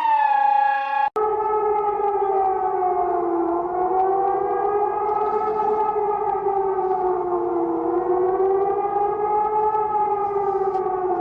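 Civil defense siren wailing, a chord of two tones slowly rising and falling in pitch. About a second in, the end of a falling alarm tone cuts off and the siren starts.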